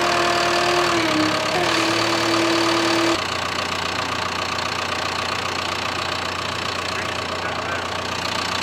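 John Deere 650K crawler dozer's diesel engine running, with a steady whine over it while its raised blade carries the excavator counterweight; the whine dips slightly in pitch about a second in and stops suddenly about three seconds in, leaving the engine running steadily.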